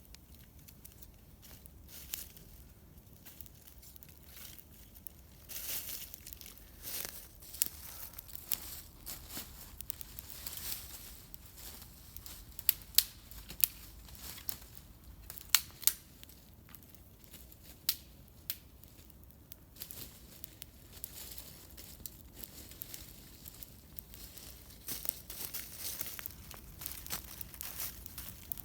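Wood campfire crackling, with scattered sharp pops that cluster and grow loudest about halfway through.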